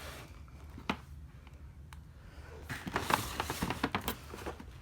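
Firework packages being handled: a single light tap about a second in, then a run of small clicks and rustles from about three seconds in, over a faint low hum.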